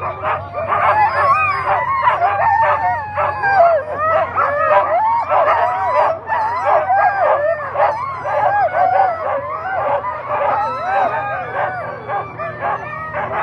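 A team of Alaskan husky sled dogs in harness barking, yipping and howling together without a break, many voices overlapping: the excited noise of sled dogs at the start line, eager to run.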